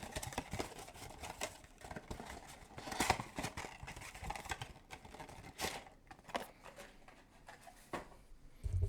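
Trading-card mini box packaging being handled and opened: scattered rustling, crinkling and small clicks and tears, a little louder about three and five and a half seconds in.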